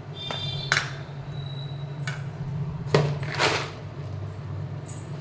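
A plastic snack jar of bhuja (puffed-rice mix) being picked up and handled: a few sharp knocks and clicks, then a short rustling rattle about three seconds in. A steady low hum runs underneath.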